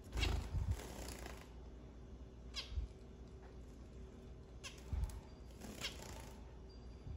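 Zebra finches giving short, falling call notes every second or two, with a few low thumps near the start and about five seconds in.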